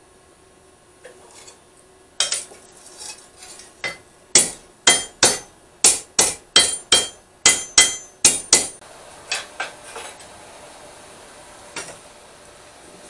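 Blacksmith's hammer striking steel on an anvil while forging a smatchet blade: a run of ringing blows, roughly two a second, starting about two seconds in and tapering off about ten seconds in.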